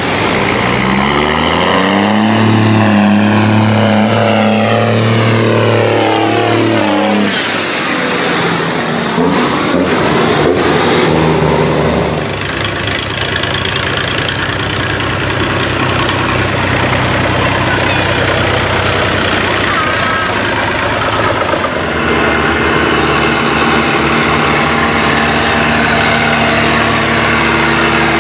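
A modern New Holland tractor's engine accelerating toward and past, its pitch rising and then sweeping down as it goes by. Vintage Fiat tractors' engines follow, running steadily as they drive past.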